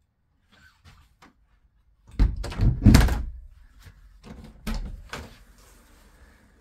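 A mobile home's interior doors being handled and opened. A few faint clicks are followed, about two seconds in, by a cluster of hollow thuds and knocks, the loudest part. A second, lighter group of knocks and a latch click comes around five seconds in.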